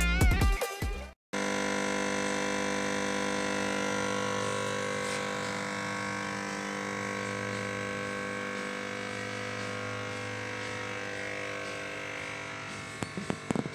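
A steady electric buzz made of several fixed tones, slowly fading, with a few clicks near the end.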